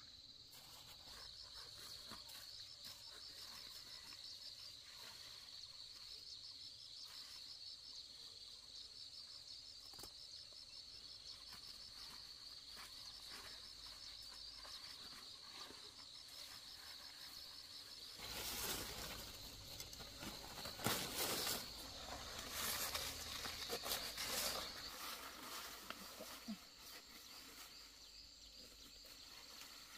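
Insects chirping steadily in a high, rapidly pulsing trill. For several seconds past the middle, louder rustling and knocking noises rise over it.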